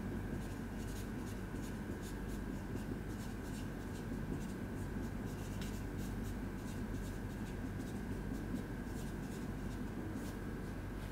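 Whiteboard marker writing on a whiteboard in many short strokes, over a steady faint hum.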